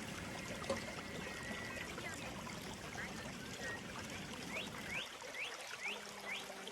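Small stream babbling steadily, with a bird giving five short rising chirps, about two a second, in the second half.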